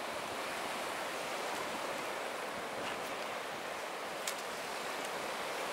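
Ocean surf washing onto a sandy beach: a steady hiss of small breaking waves.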